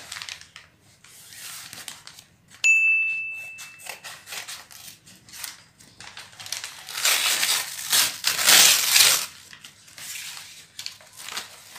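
Brown paper courier bag crumpled and torn open by hand, the paper rustling and crackling, loudest and densest about six to nine seconds in. About two and a half seconds in, a single bright ding rings for about a second.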